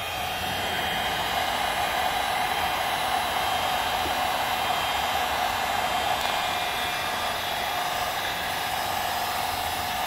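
Wagner heat gun running steadily, its fan blowing hot air with a steady whine.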